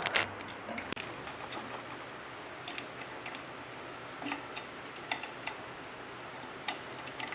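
Light, irregular metallic clicks and clinks of two 10 mm spanners on a ceiling fan's clamp nut and bolt as the nut is tightened.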